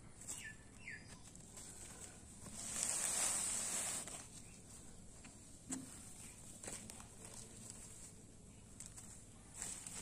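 A kitten pawing and pouncing on a woven plastic cement sack, the sack rustling, loudest for about a second and a half around three seconds in, with a few light taps and scrapes after.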